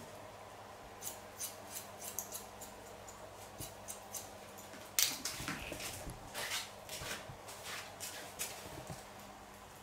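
Hairdressing scissors snipping through dry hair, trimming the ends, in quick irregular cuts, the loudest snips about halfway through.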